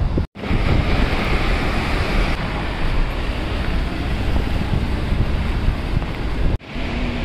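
Wind rushing over the microphone and road noise from a moving car, filmed through an open side window: a loud, steady rush. It cuts out briefly twice, near the start and near the end.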